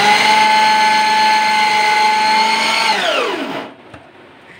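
Preethi Zodiac mixer grinder's 750 W motor driving the food-processor slicer disc through a carrot, running with a steady whine. About three seconds in it is switched off and winds down, falling in pitch, to a stop.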